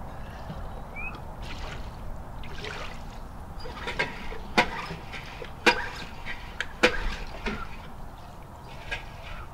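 Small outboard motor being pull-started by hand: a run of sharp clacks from the recoil starter, about one a second from four seconds in. The engine does not catch.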